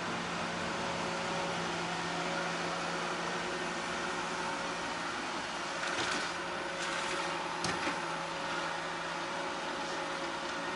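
iLife A9 robot vacuum running with a steady mechanical hum and whir, with a few brief knocks about six and seven and a half seconds in.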